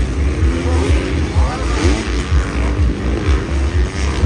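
Several motocross dirt bikes on the track, their engines revving up and down in pitch as they ride and jump, over heavy wind rumble on the microphone.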